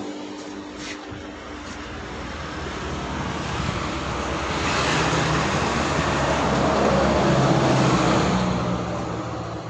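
Motor vehicle engine passing by, its noise swelling to a peak about seven to eight seconds in and then fading.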